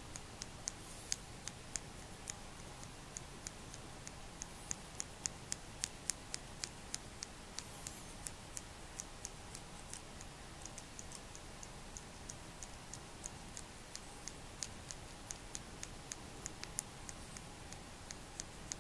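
Light, sharp, high-pitched clicks, about two to three a second and unevenly spaced, over a faint steady hum in a quiet room.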